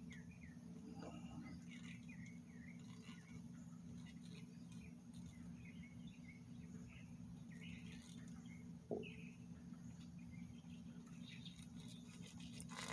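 Faint, scattered bird chirps over a steady low hum, with one brief click about nine seconds in.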